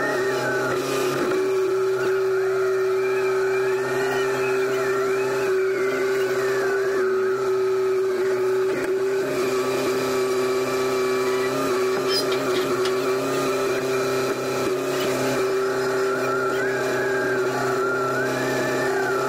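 Skytrak telehandler engine running steadily as the machine lifts and carries a load, a constant drone with a higher whine wavering up and down above it.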